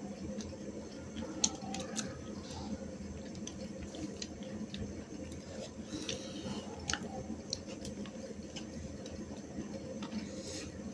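Two people eating rice and curry with their hands from steel plates: wet squishing of fingers mixing rice, chewing, and scattered light clicks of fingers and rings against the plates, over a steady low hum.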